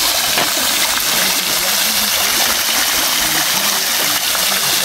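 Fountain water splashing and rushing steadily, an even hiss with no pauses.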